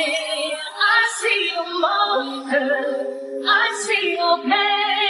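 Background music: a song with a high woman's singing voice, holding and sliding between notes.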